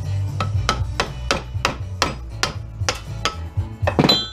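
A series of sharp metal knocks, about three a second, as a hand tool is worked into the duct booster fan's electric motor clamped in a steel bench vise to break out its copper windings. It ends in a louder clank that rings briefly.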